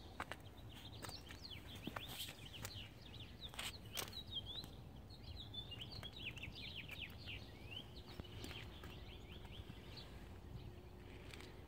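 Small birds chirping and twittering in quick, high, sliding notes over a faint low background rumble, with a few sharp clicks.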